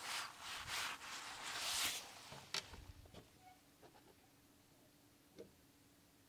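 Rustling handling noise close to the microphone for about the first two seconds, then a few faint scattered clicks over near quiet.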